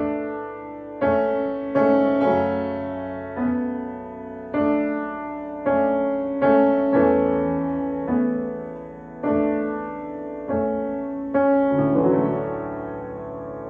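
Solo piano playing slow, gentle chords, each struck and left to ring and fade before the next, about one a second.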